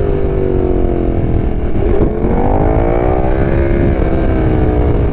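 KTM 1290 Super Duke R's V-twin engine running under way on the move. The engine note dips briefly about two seconds in, then rises again as it pulls, over a heavy low wind rumble on the microphone.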